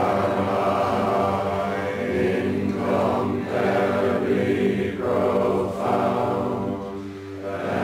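Zen Buddhist sutra chanting: voices holding a near-steady, monotone pitch, with a short dip about seven seconds in.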